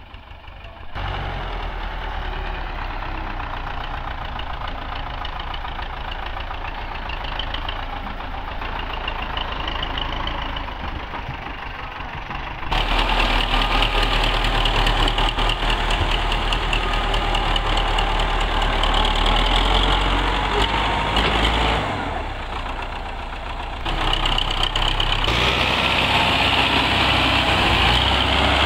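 Belarus 510 tractor's four-cylinder diesel engine running steadily while it pulls a fully loaded soil trolley through mud. The sound gets louder about halfway through and dips briefly near the end.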